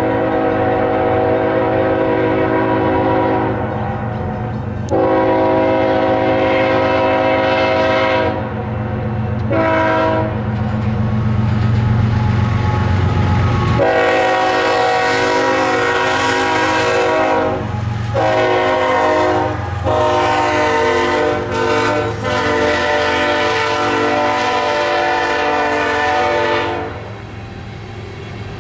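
BNSF diesel freight locomotive's air horn blowing the grade-crossing signal: two long blasts, a short one, then a long held blast as the locomotives pass, over the low rumble of the diesel engines. Near the end the horn stops and the loaded coal hopper cars roll by.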